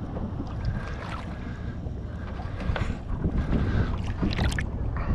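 Steady low rumble of water and wind noise on the microphone, with scattered light knocks and a short crackling burst about four and a half seconds in.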